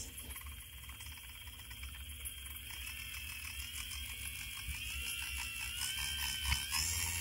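Healthco NCL-35SH/H dental engine's micromotor handpiece running with a steady high whine. From about halfway through the pitch rises as the speed knob is turned up.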